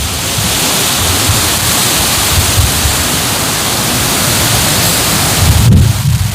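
Strong wind blowing across the microphone: a steady rushing hiss with low buffeting gusts, the hiss cutting out suddenly near the end while the low buffeting carries on.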